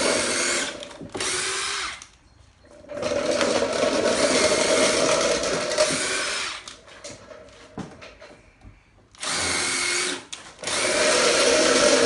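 Cordless drill driving screws into wooden boards, in several runs of steady motor whine that start and stop, the longest about three and a half seconds, with clicks and handling knocks in the pauses.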